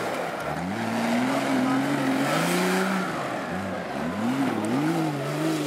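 Off-road 4x4's engine revving, its pitch climbing, dipping twice and climbing again before holding steadier near the end.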